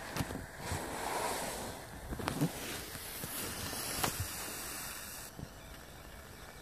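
Wind rushing on the microphone, with a few light knocks as the camera is handled; the rush drops away about five seconds in.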